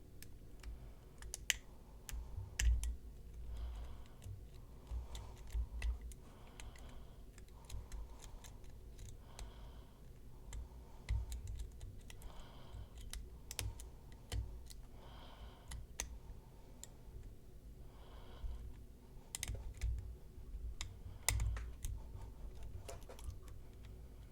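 Lock pick and tension wrench working the pins of a PacLock PL410 Pro padlock. It gives faint, irregular small metal clicks and ticks, with soft handling thumps between them.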